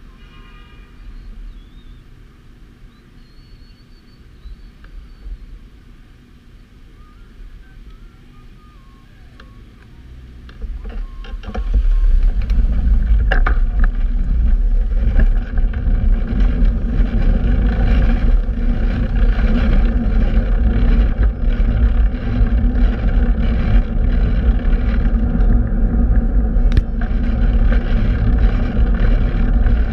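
Wind noise buffeting the microphone of a camera riding along on a bicycle in city traffic. It is fairly quiet at first, then about eleven seconds in turns into a loud, steady low rumble that holds to the end.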